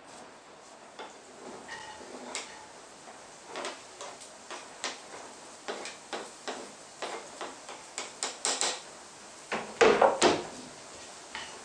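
Chopped food being scraped off a plastic cutting board into a frying pan: irregular taps and knocks of the board and hand against the pan, with a tight cluster of louder knocks about ten seconds in, over a faint sizzle from the pan.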